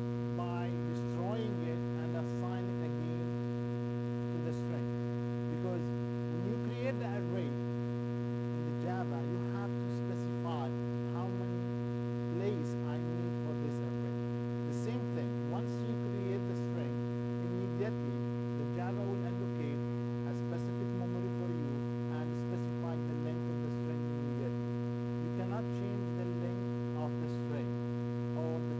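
Steady electrical mains hum with a buzzy stack of overtones, the kind a ground loop or electrical pickup leaves in a recording. Faint brief pitched sounds come and go over it.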